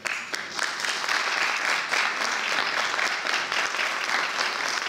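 An audience and the panel applauding, a dense steady clapping that starts all at once at the close of the session.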